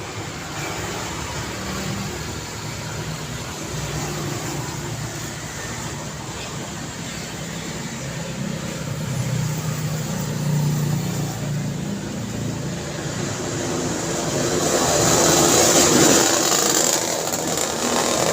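City street traffic: a steady rush of passing cars with a low engine hum, and one vehicle passing close, swelling to its loudest about sixteen seconds in with a hiss of tyres on the road.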